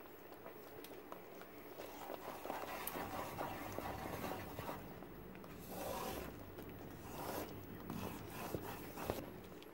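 Wooden spatula stirring and scraping a thick coconut paste around a pan: a run of soft, irregular scrapes, getting louder about two seconds in. The paste has thickened and is starting to release ghee.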